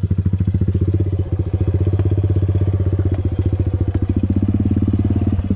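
Small single-cylinder four-stroke pit bike engine of a 110cc dirt bike running steadily at a low, idle-like speed, with an even rapid putter of about fifteen beats a second.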